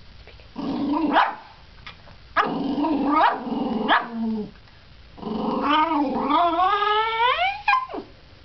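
Small dog "speaking" on command: three drawn-out, pitched growl-like calls, the last and longest one climbing in pitch before it stops.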